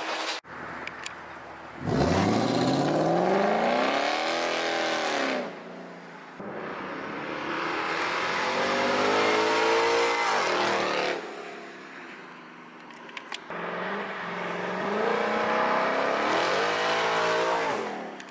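Ford Mustang GT's 5.0-litre V8 running with its mufflers removed, accelerating hard past in three separate passes. Each pass rises steadily in pitch as it revs up, then drops away as the car goes by.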